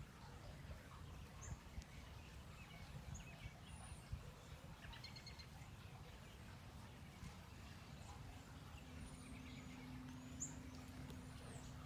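Faint outdoor background: a low rumble, with short, high bird chirps several times. A steady low hum joins about two-thirds of the way in.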